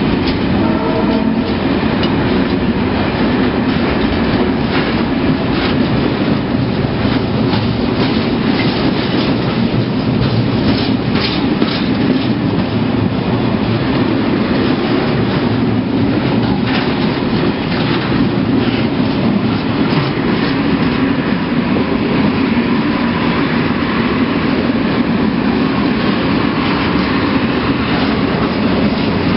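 Freight train wagons rolling past close by: a steady rumble of steel wheels on rail, with a running clatter of clicks as the wheels cross rail joints.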